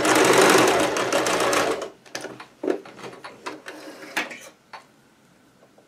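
Domestic sewing machine running a straight stitch through cotton fabric for about two seconds, then stopping. Short clicks and fabric rustles follow as the work is handled at the machine.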